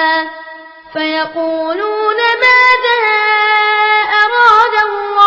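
A young boy's voice reciting the Quran in a melodic tajweed style, drawing words out into long held notes with ornamented turns. There is a brief pause for breath near the start.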